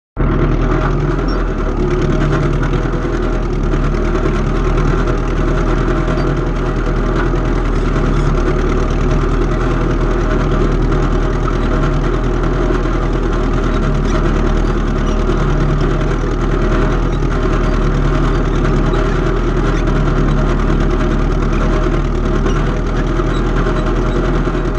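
Engine of antique farm equipment running steadily at an even speed.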